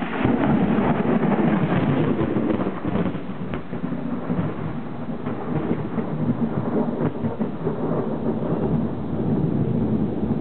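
Thunder from a close cloud-to-ground lightning strike: it breaks in suddenly at the start with a crackling, rolling rumble that eases a little after a few seconds and then swells again.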